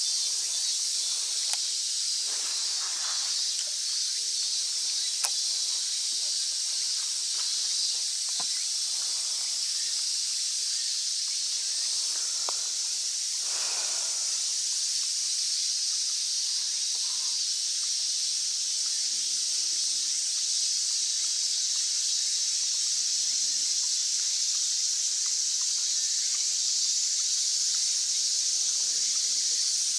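A dense, steady high-pitched chorus of cicadas in the surrounding summer forest, unbroken throughout, with a couple of sharp clicks in the first few seconds.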